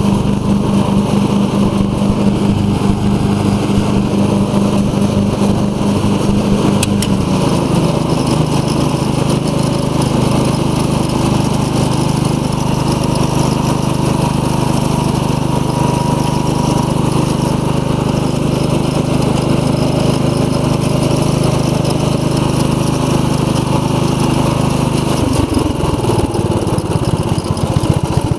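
A riding lawn mower's 15 hp OHV Briggs & Stratton engine running steadily with the cutting blades engaged. Its note shifts slightly about a quarter of the way in, and near the end it drops lower and turns pulsing.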